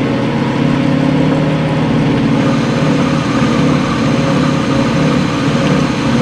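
Craftsman Atlas metal lathe running steadily under power, its motor and drive humming while the tool takes a deeper cut in a 1018 mild steel bar held close to the chuck. The tool sits on a solid tool post in place of the compound rest, and the machinist hears the cutting vibration as coming from the workpiece, not the tool post.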